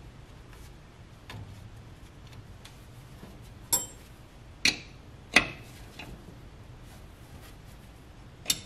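Metal clicks of a wrench working a brake line fitting nut on a master cylinder as it is tightened: faint ticks throughout and four sharp clinks, three of them in quick succession near the middle and one near the end.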